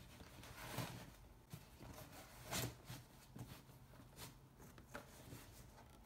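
Faint rustling and soft bumps of shoes being handled and pushed into a leather backpack. There are several separate swishes, the loudest about two and a half seconds in.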